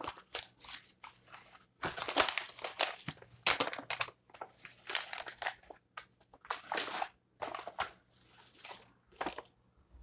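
Paper sandwich wrapper crinkling and rustling in irregular bursts as it is opened and the sandwich is pulled out.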